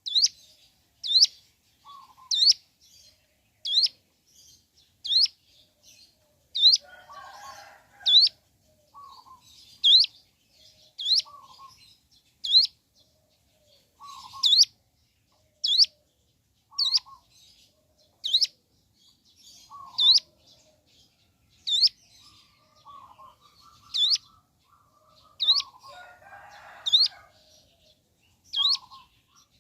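Ciblek gunung, a prinia, calling a sharp rising note over and over, about one every second and a quarter, often followed by a short lower note. Twice, about a quarter of the way in and near the end, a scratchy buzzing sound joins it.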